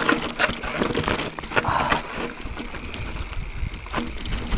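2017 Santa Cruz Hightower full-suspension mountain bike descending a rough, rocky trail: tyres running over rock and the bike rattling, with many irregular sharp knocks from impacts.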